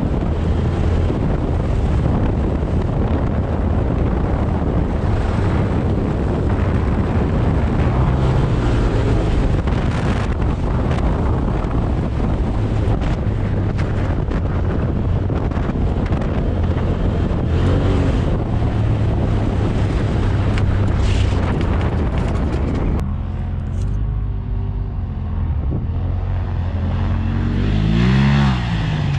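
Straight-piped Polaris RZR 1000 Turbo running hard over sand dunes, heard from on board with wind buffeting the microphone. Near the end the engine note thins out, then revs up and falls back once.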